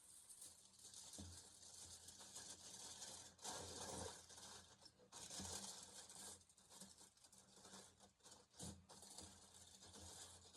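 Faint crinkling and tearing of aluminium foil as it is pulled off and wrapped over a pan.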